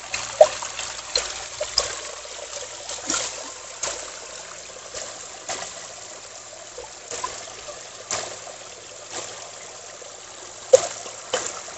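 Water trickling and splashing steadily over a concrete edge into a shallow pool, with scattered small splashes and one sharper, louder click near the end.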